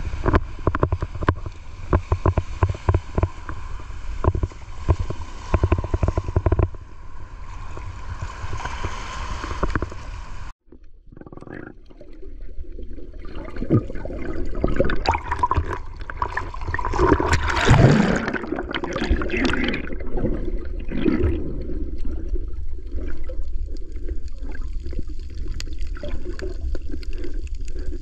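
Shallow surf washing in with wind buffeting the microphone and many sharp crackles, cut off abruptly about ten seconds in. Then muffled underwater sound: seawater sloshing and gurgling around the submerged camera, louder for a moment past the middle.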